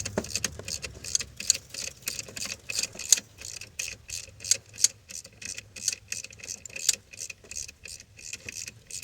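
Hand ratchet clicking as it is swung back and forth on a bolt in the engine bay: a run of sharp metallic clicks, about four or five a second, uneven in loudness.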